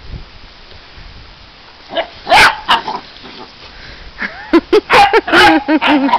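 Basset hounds barking in play: two or three loud barks about two seconds in, then a rapid run of short barks and yaps over the last two seconds.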